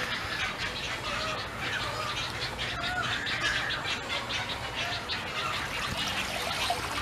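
Birds squawking, a run of short calls one after another.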